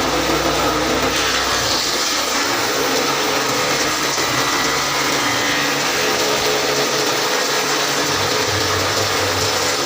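A woodworking power tool's electric motor running steadily, a loud even noise with a faint hum in it.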